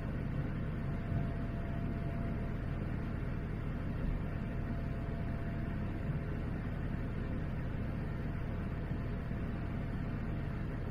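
Cabin noise of a Boeing 787-9 climbing after takeoff: the steady, low-heavy sound of the engines and airflow, heard from a window seat beside the engine, with a faint steady tone running through it.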